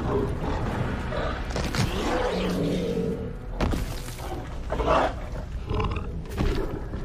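Film sound design: a large dinosaur growling and roaring, with a few heavy hits and a low rumble under orchestral score.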